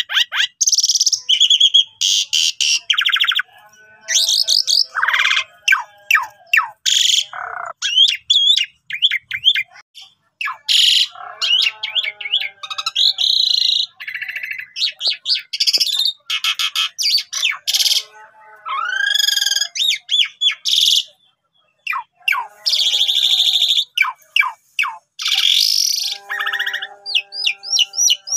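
Asian pied starling singing in full voice (gacor): a rapid, varied string of loud whistled glides, chirps and harsh notes, broken by short pauses between phrases.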